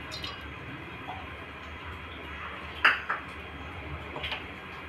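A few light clinks of metal kitchenware against a kadhai or utensil. The loudest is a short ringing ping about three seconds in, with smaller clicks before and after it, over a low steady background.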